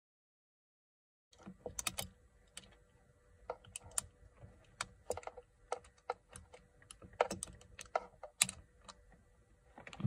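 Irregular sharp clicks and ticks, starting about a second in, as a T27 Torx bolt is turned in a steering wheel with a folding Torx key set.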